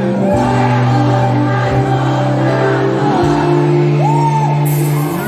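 Loud band music with a singer's voice over held keyboard and bass notes, breaking off abruptly near the end.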